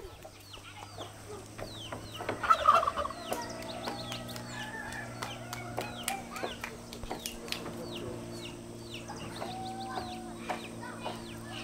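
Chickens peeping and clucking in many short falling notes, with one louder call about two and a half seconds in, over a steady low hum.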